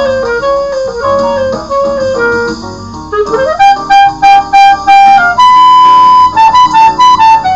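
Clarinet playing a slow jazz melody over an accompaniment: held notes, then a rising slide into a long note near the middle, a higher long note after it, and a run of shorter notes near the end.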